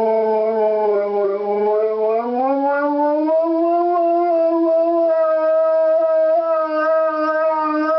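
Airedale terrier howling in one long unbroken note. The pitch rises a step about two seconds in and then holds steady.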